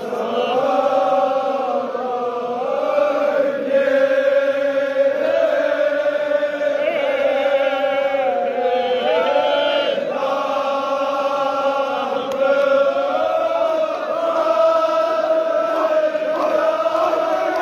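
Large group of men chanting a Kashmiri marsiya, a mourning elegy, together in long held, wavering notes.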